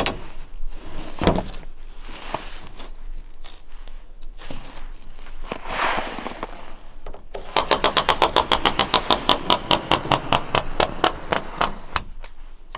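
A tool drawn along a metal drywall T-square across a grooved ceiling panel, ticking sharply over each groove in a fast, even run of about ten clicks a second for some four seconds, starting about halfway through. Before that, soft scraping and crunching as the square and panel are handled on snow, with a knock about a second in.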